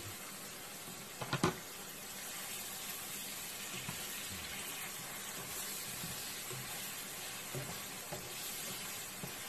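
Onions and marinade sizzling and simmering in a frying pan as they are stirred with a spatula, a steady hiss. There is a sharp knock about one and a half seconds in.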